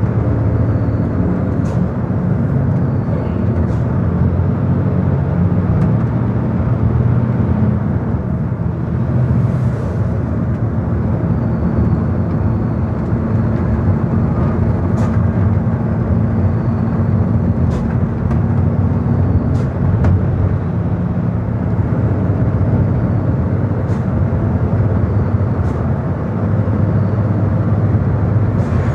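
A car's engine running steadily under road and tyre noise while driving along a highway, a low, even drone with no marked changes.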